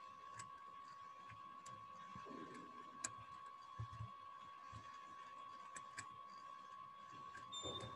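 Near silence with a steady faint high tone, broken by a handful of faint, scattered clicks from a computer mouse clicking and scrolling.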